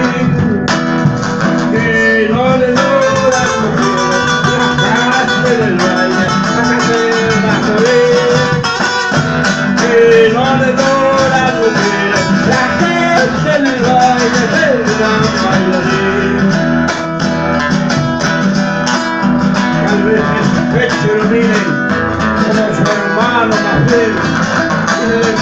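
Classical nylon-string guitars playing an Argentine folk tune without pause, with a wavering sung melody carried over the strumming.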